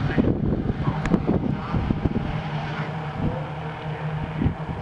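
A pack of Holden Gemini race cars with four-cylinder engines, droning steadily in the distance. Wind rumbles irregularly on the microphone through the first few seconds.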